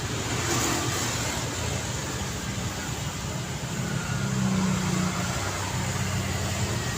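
City street traffic: a steady wash of passing cars with engine and tyre noise. One vehicle's engine grows louder about four to five seconds in.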